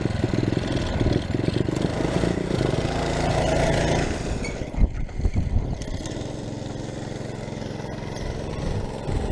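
Small single-cylinder engine of an SSR 110cc pit bike running close up: it runs strongly through the first few seconds, gives a few sharp thumps about halfway, then settles to a quieter, steady low idle.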